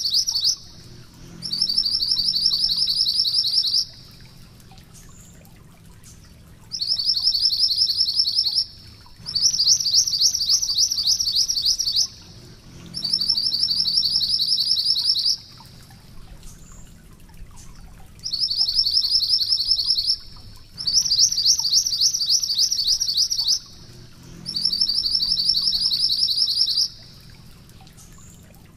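Minivet (mantenan gunung merah) singing its rolling trill: fast runs of high chirping notes, each run two to three seconds long, repeated over and over with short pauses between.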